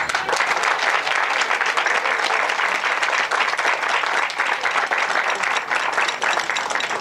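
Audience applauding. The clapping breaks out at once as the dance music ends and keeps up at an even level.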